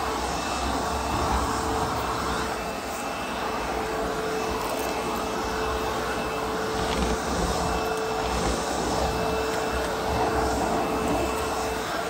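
ProTeam Super Coach backpack vacuum running steadily with a constant motor whine as its floor tool is pushed across carpet.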